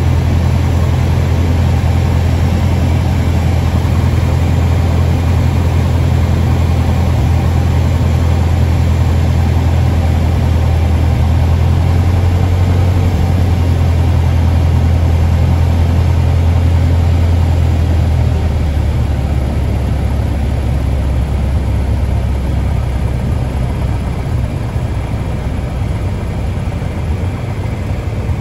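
Cessna 172's single piston engine and propeller droning steadily, heard inside the cabin, with airflow noise over it. About two-thirds of the way through the low drone fades as power comes back for the landing.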